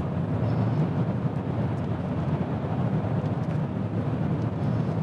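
Steady road noise inside a moving car's cabin at highway speed: a low, even rumble of tyres and wind.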